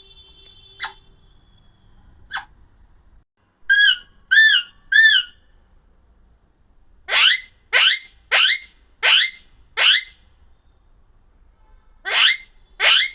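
Alexandrine parakeet calling: two short sharp chirps, then three clear whistled notes that rise and fall about four seconds in, followed by a run of five harsh, rising squawks from about seven to ten seconds, and two more near the end.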